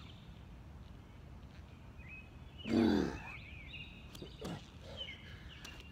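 A man's loud grunt about three seconds in, its pitch falling, as he strains through a push-up. Faint high chirping calls are heard in the background.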